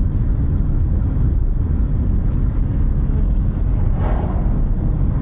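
Steady low rumble of a car's road and engine noise heard from inside the moving cabin, with a short louder noise about four seconds in.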